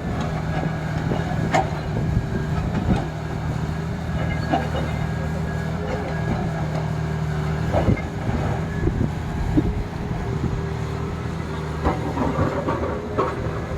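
Heavy vehicle engine running steadily, with occasional sharp knocks and clanks.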